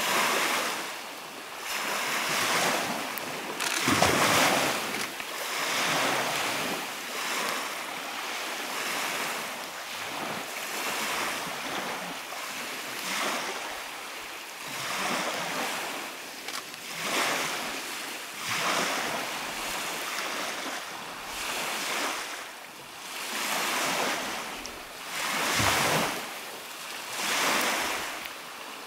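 Lake waves washing onto a gravel shore, the noise rising and falling in surges about every couple of seconds, with wind.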